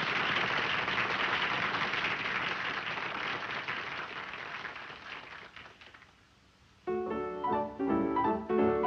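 A dense rushing noise fades away over about six seconds to near quiet. About seven seconds in, a piano starts playing a run of notes.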